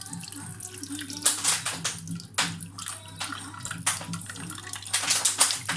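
Liquid sloshing and splashing in irregular short bursts, over a steady low hum.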